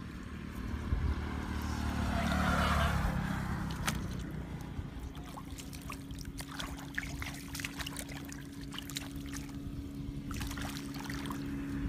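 Hands splashing and scooping in a shallow muddy puddle while groping for eels, many short wet clicks and splashes, over a steady low engine hum that cuts off suddenly at the end.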